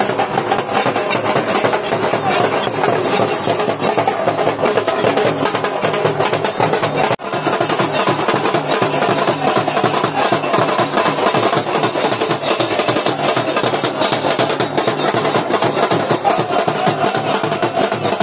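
Procession drums and large brass hand cymbals beating together in a dense, continuous rhythm, with a brief break about seven seconds in.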